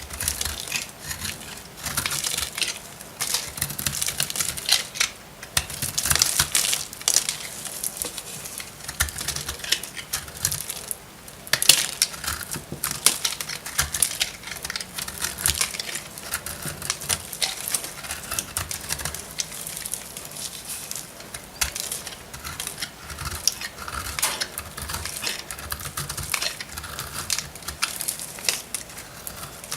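Very dry bar soap being cut, crunching and crackling in a dense run of small cracks and snaps, with a brief lull and then a sharp crack about eleven seconds in.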